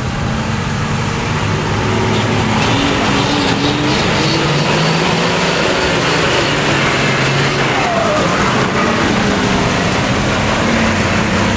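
Diesel engine of a loaded tandem-axle cargo truck running as the truck drives slowly past through deep mud. The engine note rises slightly a few seconds in and then holds steady.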